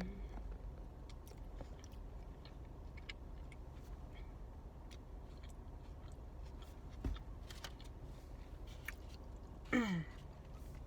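A person chewing and biting food close to the microphone, with small wet clicks of the mouth. A single soft thump comes about seven seconds in, and a short falling hum near the end.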